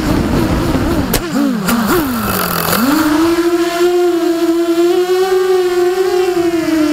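Brushless motors and propellers of an LHI 220 racing quadcopter whining, as heard from its onboard camera. In the first three seconds the pitch wobbles and swoops down with the throttle, then rises back and holds steady.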